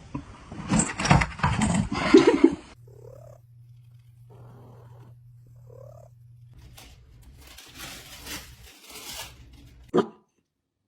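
A domestic cat's sounds: a loud, noisy stretch over the first couple of seconds, then quieter sounds with a steady low hum and two short faint calls. A sharp click comes near the end, and the sound then cuts off.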